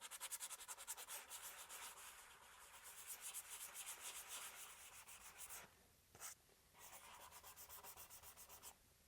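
Sandpaper rubbing back and forth on wood by hand in quick, even strokes, about six a second. It stops for about a second partway through, with one short scrape in the gap, then starts again.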